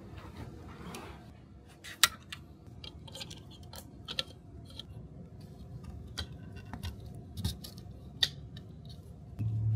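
Scattered sharp clicks and snips of hand tools at work on seat upholstery, one every second or two. Near the end a steady low hum starts, much louder than the clicks.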